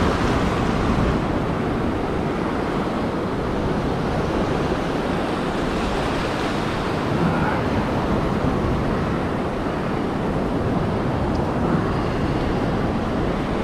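Ocean surf washing up the beach and foaming around the feet in shallow water, a steady rush with wind on the microphone.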